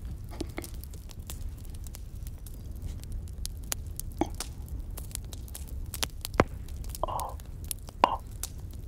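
Crackling campfire sound effect: scattered sharp pops and crackles over a low steady rumble, with two loud pops about six and eight seconds in. Twice near the end comes a short soft puff of breath as cigarette smoke is exhaled close to the microphone.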